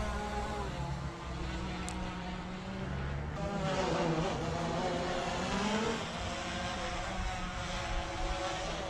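Quadcopter drone's propellers buzzing in flight, the pitch of the motors wavering and gliding up and down as the throttle changes.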